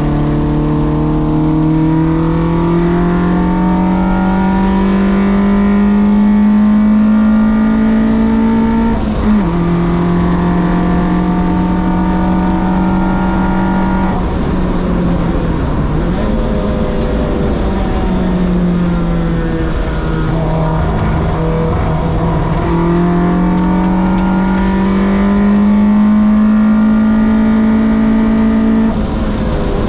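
Race car engine running hard on track, its pitch climbing slowly for several seconds as it accelerates. The pitch drops sharply about nine seconds in and again near the end.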